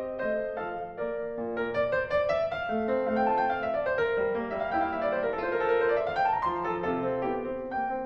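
Background piano music: a steady flow of quick notes, with runs that climb and fall in the middle.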